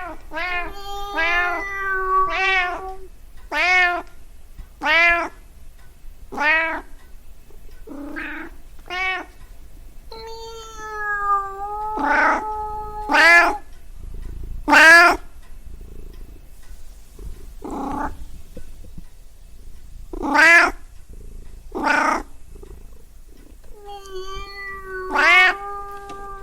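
Domestic cat meowing over and over, more than a dozen separate meows. Most are short and arch up and down in pitch; a few are long, drawn-out calls held on a steady note.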